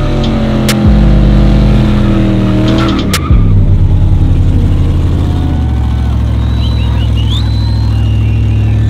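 Pickup truck engine held at high revs during a burnout, with the tyres spinning. The engine note is loud and steady, steps in pitch about a second in, then dips and settles again about three seconds in.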